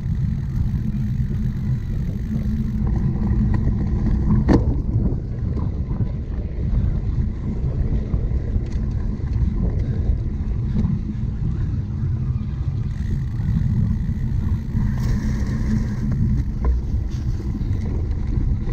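Steady low rumble of a cyclocross bike being ridden over rough ground, with wind on the microphone and scattered clicks and rattles. One sharp knock comes about four and a half seconds in.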